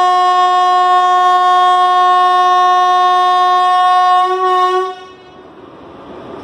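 Indian Railways WAP-4 electric locomotive's air horn sounding one long, steady, loud blast that wavers slightly just before it cuts off about five seconds in. The train's rolling rumble follows and slowly grows louder as it approaches.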